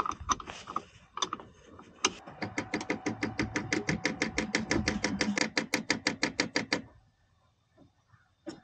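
Skid steer engine cranking over on the electric starter, pulsing about eight times a second for some five seconds, then stopping without catching: a failed start.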